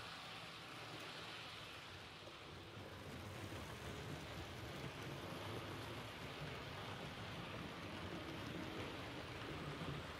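Rivarossi model train running: the E 444 electric locomotive's motor and the TEE coaches' wheels rolling over the track make a steady rushing rumble, which grows a little louder from about three seconds in.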